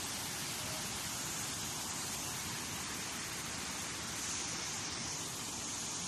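Rushing water: a steady, even hiss with no breaks.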